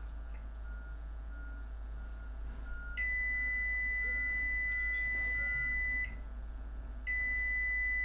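A steady low hum from a running microwave oven under a faint, short tone that repeats about twice a second. About three seconds in, a loud, high-pitched electronic beep sounds steadily for about three seconds, cuts off, and starts again a second later.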